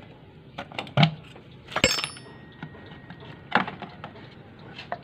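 Metal tools knocking and clinking against a Yamaha NMAX's engine side cover as it is pried loose with a screwdriver: four sharp knocks about a second apart, the one about two seconds in ringing briefly.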